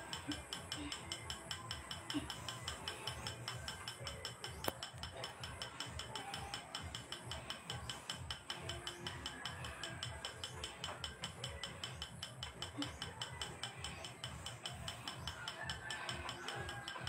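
Steady, rapid mechanical clicking, several even clicks a second like a ratchet, with one sharper click about five seconds in.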